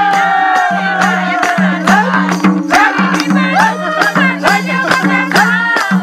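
Live Nepali dohori folk music: a long sung note drawn out and falling in the first couple of seconds, then shorter sung or shouted phrases, over a steady drone and a regular beat with hand clapping, about two to three claps a second.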